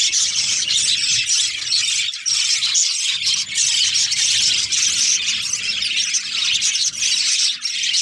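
A large flock of budgerigars chattering: a loud, dense, unbroken mix of high chirps, warbles and squawks from many birds at once.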